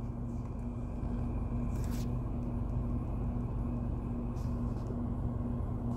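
Steady low rumble and hum of a car interior, with a couple of faint brief rustles.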